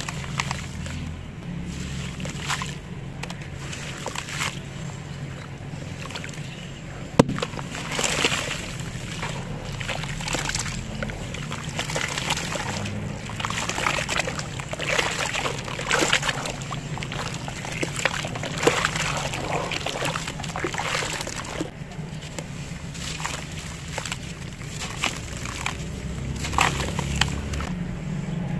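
Hands sloshing and squelching wet cement slurry in a tub of water, squeezing and crumbling lumps of cement with irregular splashes. One sharp click stands out about seven seconds in.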